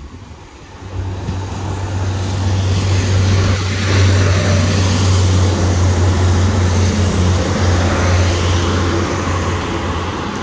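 NI Railways diesel multiple unit passing over a level crossing. A steady low engine hum and the rush of wheels on rail build from about a second in and are loudest from about four seconds in as the train goes by.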